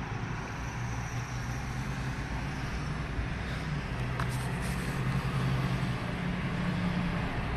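Road traffic and engine hum heard from inside a car cabin: a steady low drone with an even rush of road noise, swelling a little in the middle.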